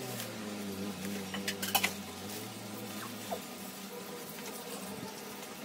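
Scattered crackles and clicks of plastic bubble-wrap packaging being torn off and handled, over a low steady hum that stops a little over three seconds in.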